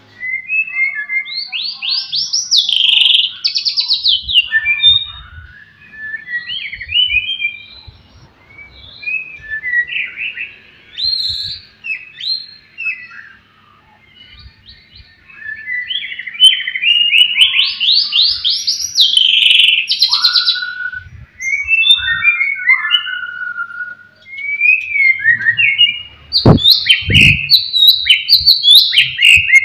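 White-rumped shama (murai batu) singing hard in bursts of loud whistles, gliding notes, fast trills and chattering phrases, with short lulls between bursts. Two low knocks come near the end.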